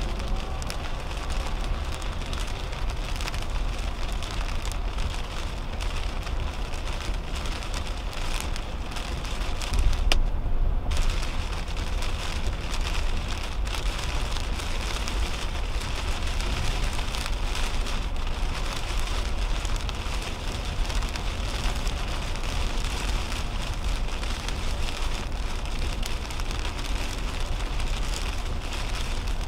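Heavy rain hitting a 2010 Toyota Camry's windshield and roof at highway speed, an even hiss over the steady low rumble of tyres on the wet road, heard from inside the cabin. About ten seconds in, the rain hiss drops out for under a second while the rumble briefly rises.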